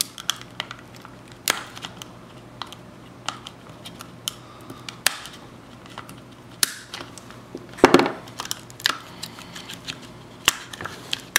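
Thick, heat-deformed plastic cup being cut and pried off a boiled egg with a small blade: scattered sharp clicks and snaps of the hard plastic, with a louder burst of crackling about eight seconds in.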